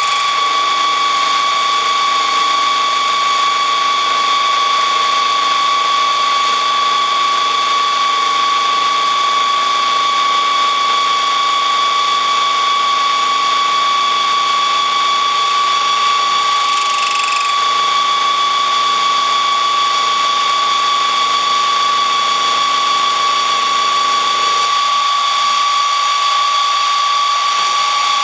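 Manual benchtop milling machine running an end mill through a steel block clamped in the vise, a loud, steady, high-pitched machining whine. A brief sharper, higher sound comes about 17 seconds in, and the lower hum drops out near the end.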